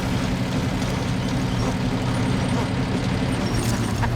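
Tow truck engine running steadily: a loud, even low drone.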